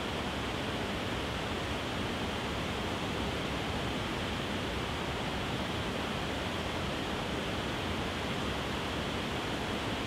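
Waterfall: water pouring over wide rock ledges in a steady, unbroken rush.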